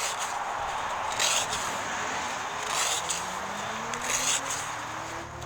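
Sharpened axe blade slicing through paper, three short rasping cuts about a second and a half apart. Behind it, a vehicle engine comes in near the middle and rises slowly in pitch.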